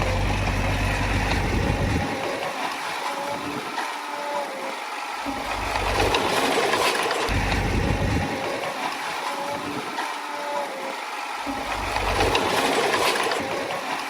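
Komatsu D20A crawler bulldozer's diesel engine running, its sound rising and falling, louder around six and twelve seconds in.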